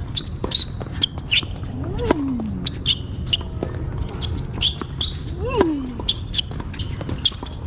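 Tennis rally: sharp, irregular knocks of racket strikes and tennis ball bounces, with short high squeaks of shoes on the court.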